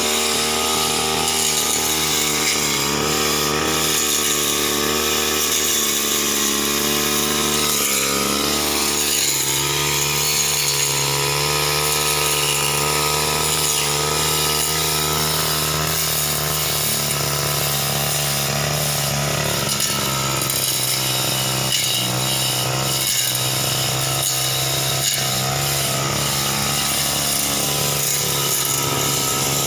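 Backpack brush cutter's engine running steadily as its cutting head trims low shrubs, the pitch wavering slightly up and down with the load.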